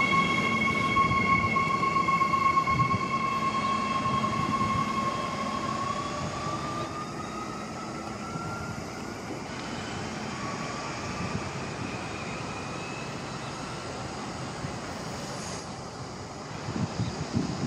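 Queensland Rail electric multiple unit pulling away: a steady electric whine that starts rising in pitch about five seconds in as the train gathers speed, over the rumble of its wheels on the rails, the whole sound fading as it draws off. Wind buffets the microphone near the end.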